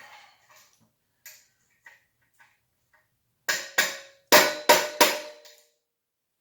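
A few light metal clicks, then five sharp hammer blows on metal in quick succession, the last ones ringing. A socket is being driven into a bicycle frame tube to straighten it.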